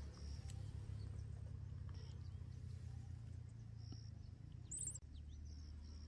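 A handful of short, high bird chirps every second or two, with a brief rising call near the end, over a steady low rumble.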